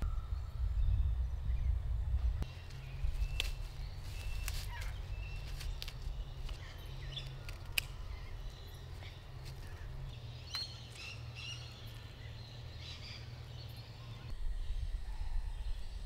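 Outdoor garden ambience: birds chirping and calling on and off over a steady low rumble, with a few sharp clicks.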